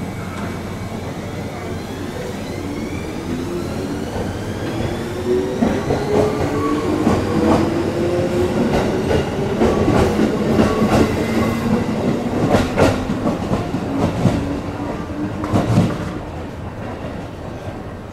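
205-series electric commuter train pulling out of the station, its motor whine rising in pitch as it picks up speed. From about halfway, its wheels clack over rail joints as the cars pass.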